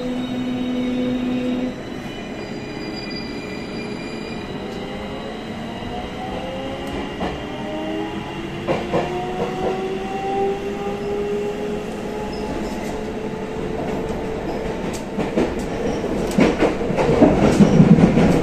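Tokyo Metro 16000 series electric train heard from inside the car as it pulls away and accelerates. The traction motors' whine climbs steadily in pitch for several seconds and then levels off, over the rumble of wheels on rail. Near the end the running noise grows louder, with a few sharp clicks from the track.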